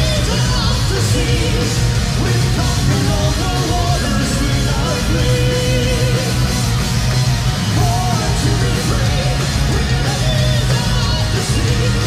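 Symphonic metal band playing live and loud: sung vocals over pounding drums, bass and distorted electric guitars.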